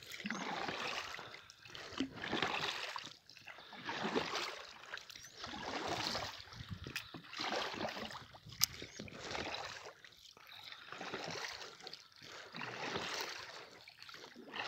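Oars dipping and pulling through the water as a rowboat is rowed: a rhythmic swish with each stroke, about one every two seconds. A single sharp click comes about two thirds of the way in.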